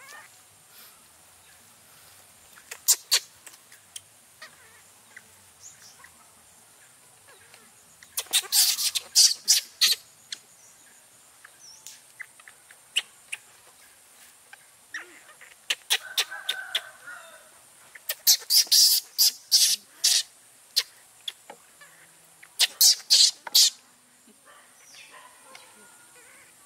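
A bird chirping in quick bursts of sharp, high notes, five or so bursts over the stretch, over a faint steady high hiss.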